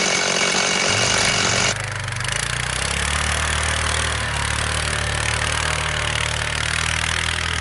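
Chainsaw cutting wood for the first couple of seconds, then the sound switches abruptly to a steady, lower engine drone that runs on.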